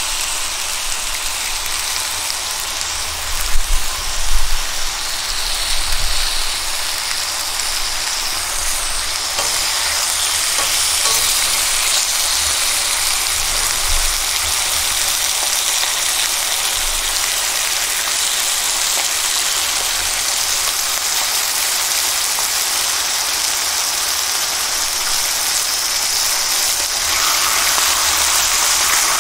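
Wagyu beef slices sizzling as they fry in melted beef fat in a pan, a steady crackling hiss that grows a little louder several seconds in. A few low bumps about four seconds in.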